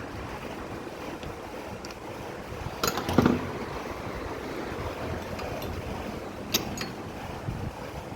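Tool work on a Hyundai i10 steering rack as play in it is being tightened: a few sharp metallic clicks and a knock about three seconds in and again past six seconds, over a steady rushing background noise.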